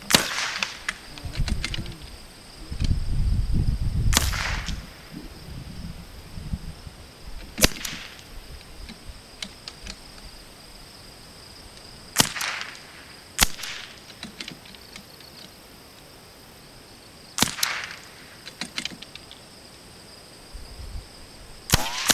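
Single shots from two .22LR bolt-action rifles, a Savage B22 Precision and a Vudoo V22, fired one at a time at irregular intervals, about seven sharp cracks in all. A low rumble is heard for a few seconds near the start.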